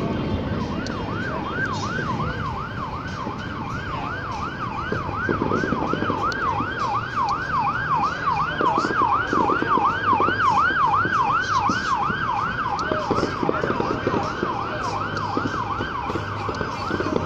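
Emergency vehicle siren in yelp mode: a fast up-and-down wail, about three sweeps a second, starting about a second in. Scattered faint pops sound behind it from about five seconds in.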